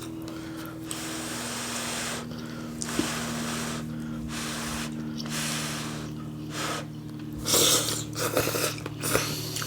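A person breathing hard in and out through the mouth, air hissing in puffs about once a second and louder near the end, the way one breathes to cool the mouth after a spoonful of hot, spicy stew.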